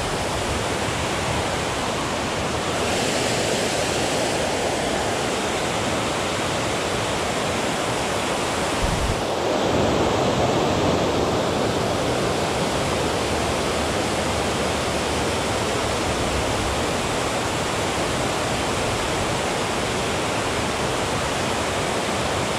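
Steady rush of water pouring over a dam spillway and flowing through the river below. A short low thump comes about nine seconds in.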